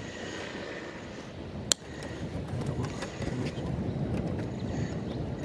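Rustling and handling of a sprung mattress's coil springs and fabric as its lower section is worked loose, over a steady low rumble. One sharp click stands out about a second and a half in.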